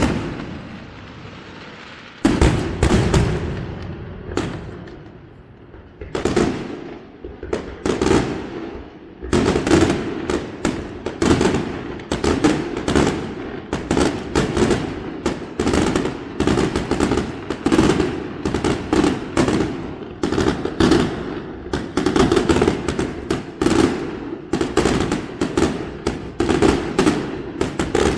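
Aerial fireworks shells bursting overhead: a few scattered bangs, each trailing off, then from about nine seconds in a dense, rapid string of bangs, several a second.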